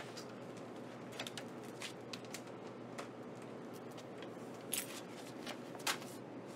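Steady low hum with scattered small clicks and rustles of handling, the two loudest near the end.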